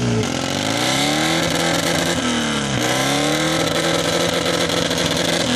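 Sidecar motorcycle engine revved hard, its pitch sinking and climbing again in long swells.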